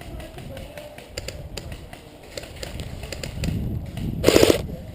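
Airsoft electric rifle firing a short automatic burst near the end, a rapid rattle of about half a second, after scattered light tapping and rustling.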